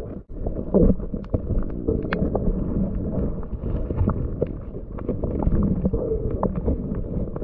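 Underwater sound picked up by a submerged camera in shallow water over a reef: a muffled rumble of moving water with scattered sharp clicks throughout.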